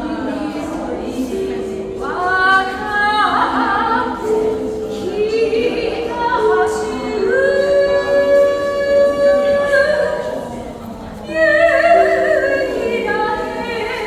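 A woman singing a slow, wavering melody, accompanied by a lyre's long-ringing plucked notes held underneath.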